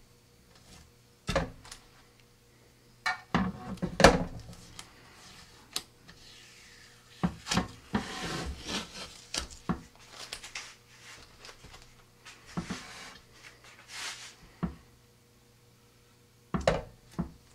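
Blue painter's tape being peeled off a rocket body tube and fins around fresh epoxy fin fillets by a gloved hand. Irregular sharp knocks and rustling, crackling peels as the tape is handled, with the loudest knock about four seconds in.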